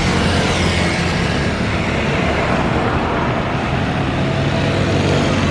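Jet engines of a twin-engine widebody airliner at takeoff thrust as it lifts off and climbs out: a loud, steady roar with a deep rumble underneath, the high hiss thinning a little midway.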